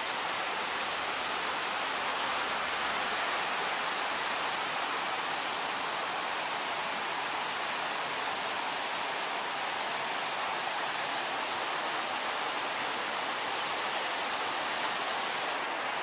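Waterfall rushing: a steady, even hiss of falling water that holds at one level throughout.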